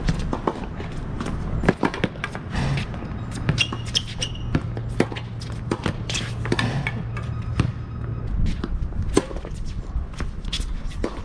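Tennis rally on a hard court: racket strikes on the ball, ball bounces and footsteps, as a series of sharp knocks at irregular intervals. A steady low hum lies under them and stops about eight seconds in.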